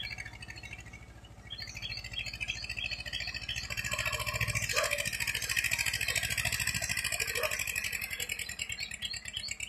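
Tractor engine running steadily while puddling a flooded rice field, under a high, fast rattling buzz that grows louder about four seconds in. A voice is heard briefly about halfway through.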